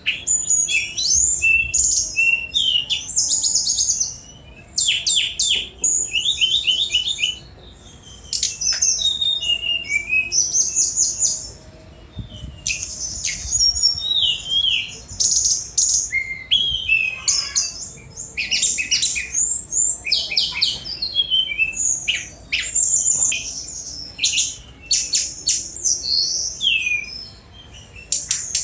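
Tledekan gunung, a jungle flycatcher, singing energetically. Fast, varied phrases of high whistles, chips and trills come in bursts of a few seconds, separated by brief pauses.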